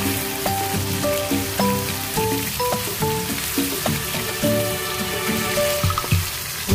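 Shrimp sizzling as they fry in hot oil in a wok, with background music of short, stepped notes playing over it.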